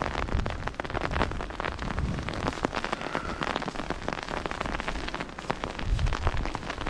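Falling snow hitting the fabric of an umbrella overhead: a dense, irregular run of tiny ticks that keeps up throughout.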